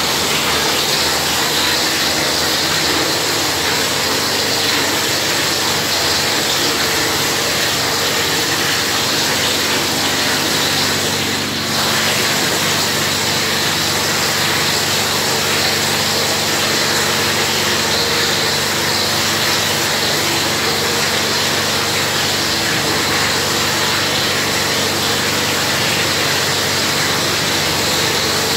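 Plastering machine pumping gypsum plaster to a spray gun: a steady rushing hiss over a low motor hum, dipping briefly about twelve seconds in.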